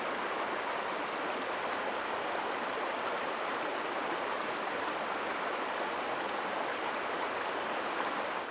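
A river flowing over rocky shallows, a steady rushing of water that cuts off abruptly at the end.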